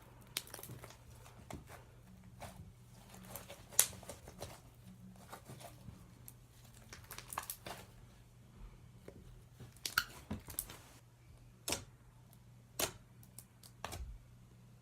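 Slime being mixed and squished, with irregular sticky clicks and pops.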